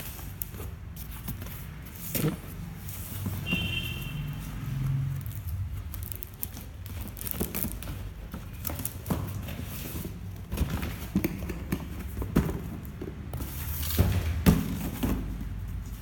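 Handling noise of a toy box and its contents: irregular knocks, taps and clicks, with louder thumps about two seconds in and again near the end, and a brief high squeak a few seconds in, over a steady low hum.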